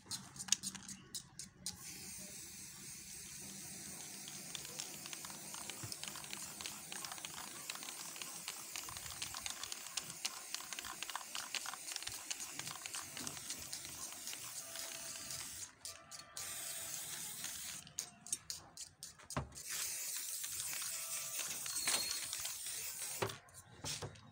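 Aerosol spray-paint can hissing as paint is sprayed in long steady bursts, with a few short breaks between passes.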